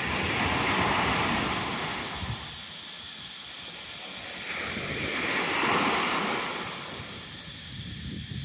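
Small waves breaking and washing up a sandy beach: two swelling surges of surf about five seconds apart.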